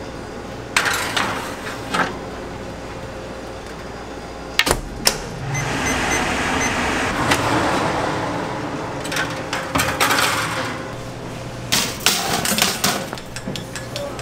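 Metal baking trays clanking and knocking against oven racks and sheet pans as trays of baked buns are handled, a few sharp clatters spread through the stretch, with a rushing noise swelling for several seconds in the middle.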